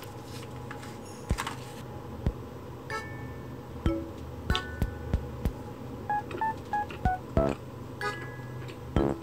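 Light background music of short, plinking keyboard notes at changing pitches, with soft ticking beats.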